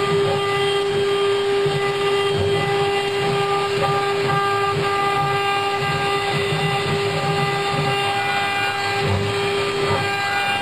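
CNC router spindle running with a steady, high whine, with an uneven lower noise that comes and goes as the bit cuts into the wood while engraving a relief.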